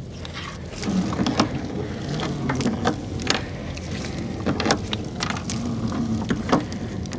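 A small boat engine running with a steady low hum that gets louder about a second in, with scattered sharp knocks and clicks over it.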